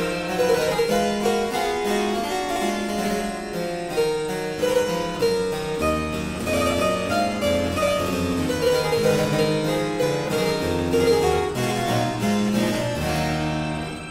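Music of quick, evenly paced notes, joined by a lower bass line about six seconds in.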